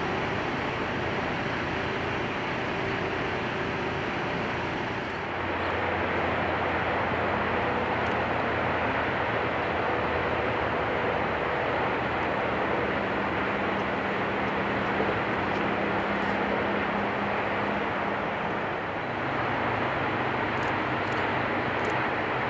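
Distant Siemens SC-44 Charger diesel locomotive running with its train as it approaches, heard as a steady, dense rumble with a faint engine hum. The sound changes abruptly about five seconds in.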